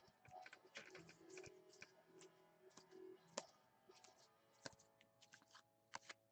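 Near silence with faint, scattered clicks and taps of trading cards being handled and flipped through, a couple of sharper ticks in the middle.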